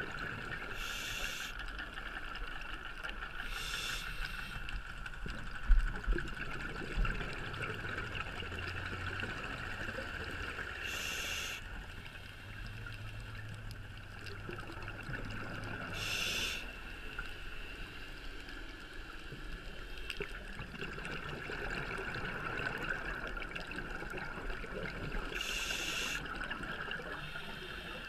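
A scuba diver breathing through a regulator underwater: a short burst of hiss every few seconds, over a steady underwater hiss. A couple of sharp knocks sound about six seconds in.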